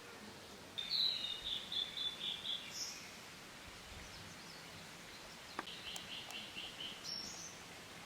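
A bird calling outdoors: a run of quick repeated high notes lasting about two seconds, then a shorter run of the same kind about six seconds in, over quiet rural background.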